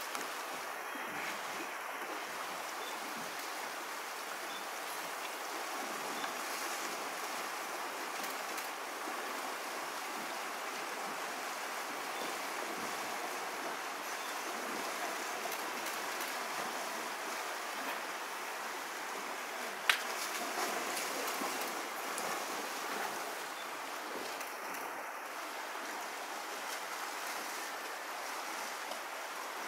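Fast river water rushing steadily around a wading grizzly bear. A single sharp click stands out about two-thirds of the way through.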